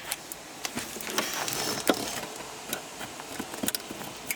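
Needle-nose pliers working at old plastic retaining clips in a dashboard frame: a scatter of small sharp clicks and light scraping of metal on plastic.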